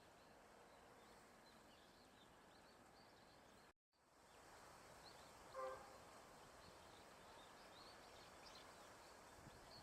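Faint outdoor pond ambience with scattered small, high bird chirps. The sound drops out completely for a moment just under four seconds in, and a single short pitched call, likely a bird's, sounds about two seconds later.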